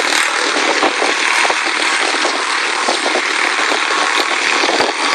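Quarter midget race cars' small engines running at speed around the oval, a steady, continuous engine noise from several cars at once.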